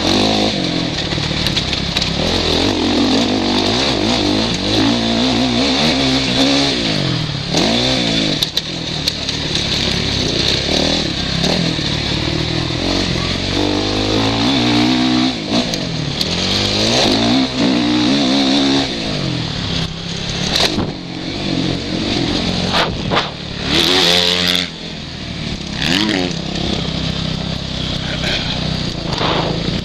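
Suzuki RM-Z450 four-stroke single-cylinder motocross engine, heard from the rider's helmet, revving hard and letting off again and again, its pitch climbing and dropping every few seconds. Scattered sharp knocks come through over it.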